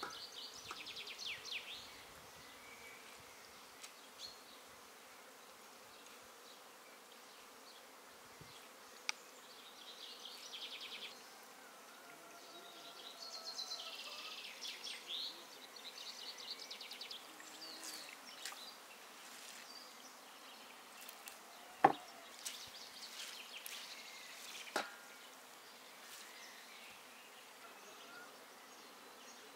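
Insects buzzing in short, high-pitched bursts of rapid pulses, over and over. Two sharp knocks come about two-thirds of the way through; the first is the loudest sound.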